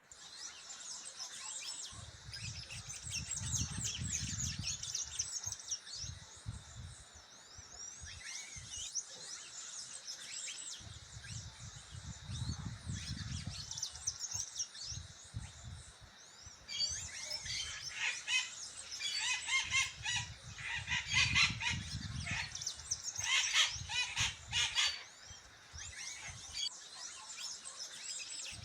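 Many birds chirping and singing at once in a dense chorus, with louder, busier calls for several seconds past the middle. A low rumble rises and fades three times underneath.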